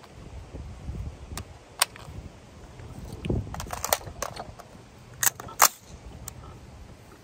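Metallic clicks of an AR-15 magazine being handled and seated in the rifle's magazine well, then two sharp clacks about five seconds in, the second the loudest, as the rifle's action is worked to make it ready to fire.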